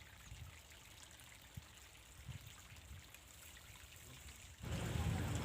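Faint trickling water. About four and a half seconds in, a louder steady engine-like rumble cuts in suddenly.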